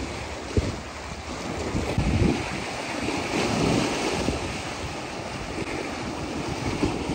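Strong wind buffeting the microphone over sea waves washing against rocks, with one short knock about half a second in.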